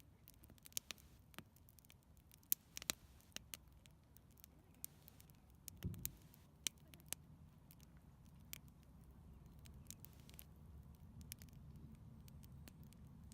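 Campfire crackling: irregular sharp pops and snaps of burning wood, some much louder than others, over a faint low rumble.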